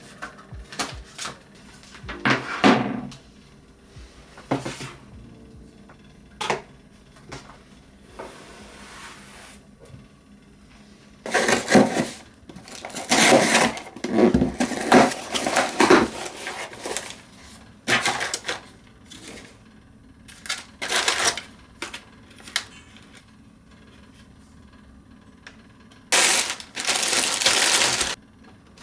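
Packages being opened by hand on a desk. Scattered knocks and clicks, a stretch of rustling and tearing around the middle as a cardboard box is cut open with a folding knife, and a plastic poly mailer crinkling as it is torn open for a couple of seconds near the end.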